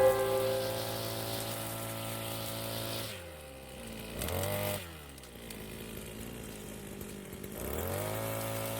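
Brush cutter's small petrol engine running at high speed, then throttled off about three seconds in so its pitch falls away, blipped briefly once, and revved back up near the end.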